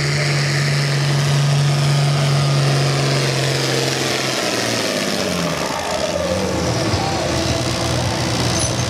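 International Harvester 1066 Turbo tractor's turbocharged six-cylinder diesel running hard at full load, pulling a weight-transfer sled. About four seconds in, the engine throttles back to a lower speed as the pull comes to an end.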